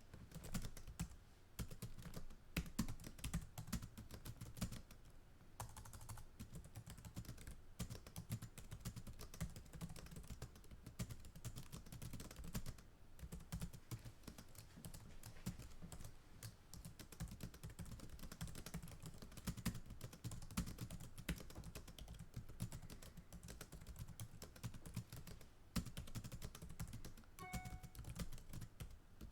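Fast typing on a computer keyboard, recorded close: a rapid, continuous patter of key clicks with a few short pauses.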